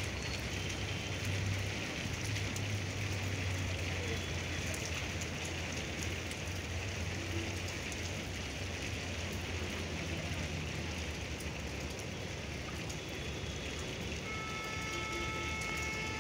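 Steady rain falling on a tiled rooftop terrace, an even hiss throughout. A faint held tone comes in near the end.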